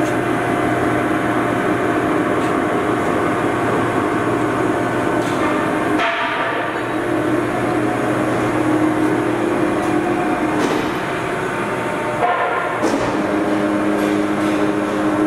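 Poreba heavy-duty engine lathe running under power: a steady mechanical hum and gear whine from the headstock drive. The tone changes about six seconds in and again about twelve seconds in, then settles back to the same steady whine.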